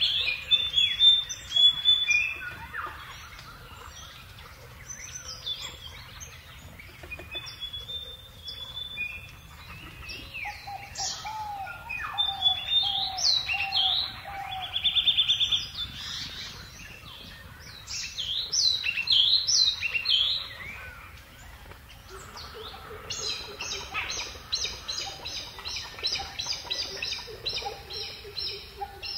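Several birds chirping and singing, with short quick trills and, in the last few seconds, a run of evenly repeated notes about two or three a second.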